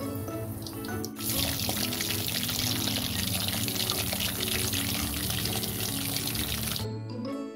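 Hot oil sizzling around chicken drumsticks deep-frying in a wok on medium heat: a dense crackling hiss that starts abruptly about a second in and cuts off shortly before the end, over background music.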